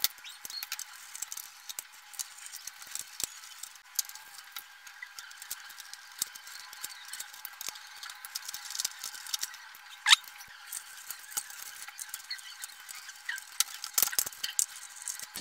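Hand disassembly of a projector with a screwdriver: scattered small clicks, ticks and rattles of screws, plastic and circuit-board parts being handled. A short rising squeak about ten seconds in is the loudest sound.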